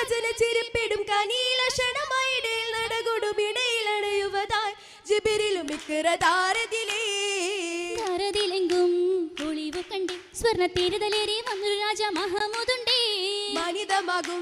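Girls singing a Mappila oppana song in chorus, one melody held and bent in long phrases, with sharp hand claps keeping time through it. The singing dips briefly about five seconds in.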